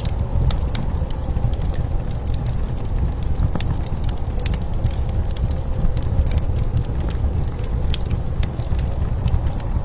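Fire crackling with frequent, irregular sharp pops over a steady low rumble of blizzard wind.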